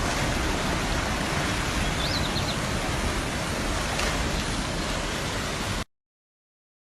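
Steady rushing noise of fast-flowing floodwater, with a brief faint high chirp about two seconds in, cutting off suddenly near the end.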